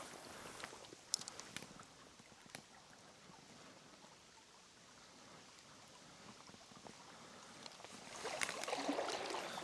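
Quiet river ambience: faint steady flowing water with a few light clicks. About eight seconds in, a louder rustling, crackling noise with small clicks starts up.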